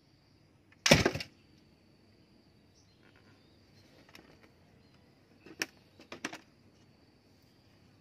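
Homemade wooden speargun dry-fired about a second in: the trigger lets go of the stretched rubber band, which snaps forward along the wooden stock with a sharp, loud crack. A few short sharp clicks follow later.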